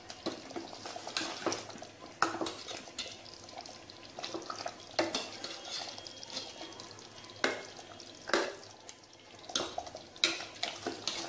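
Steel ladle stirring watery mutton gravy in a stainless-steel pot, with irregular knocks and scrapes of metal against the pot's sides and bottom.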